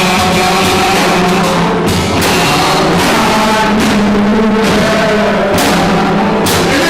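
Loud music with drums and sustained held notes.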